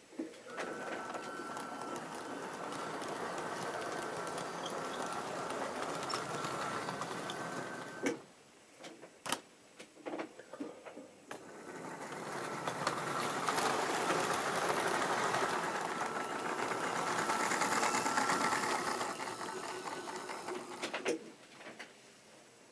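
OO-gauge model train running on sectional track: a small electric motor whirring with a thin steady whine over the clatter of wheels on rail. It runs for about eight seconds and stops, a few sharp clicks follow, then a second run builds louder and stops shortly before the end.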